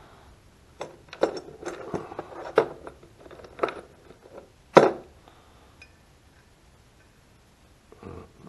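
Small metal carburetor parts and screws clinking and knocking against each other and a plastic tub as they are handled: a string of light clicks and knocks over the first few seconds, the loudest about five seconds in.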